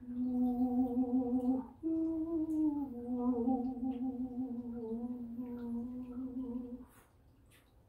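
A woman's voice humming two long, low held notes. The second begins a little higher, slides down and holds steady until it stops about seven seconds in.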